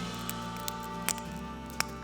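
Background music of sustained, steady tones over a low drone, with a few sharp scattered clicks.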